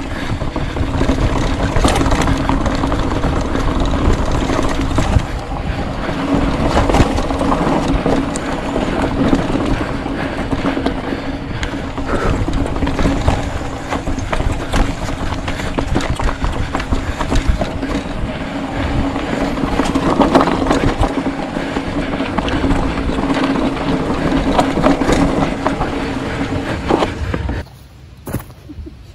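Polygon Siskiu T7 full-suspension mountain bike rolling fast over a rocky dirt trail: a loud, rough rumble full of rapid clicks and rattles from the bike over the stones, with a steady hum underneath. It cuts off suddenly about a second and a half before the end, leaving a much quieter background.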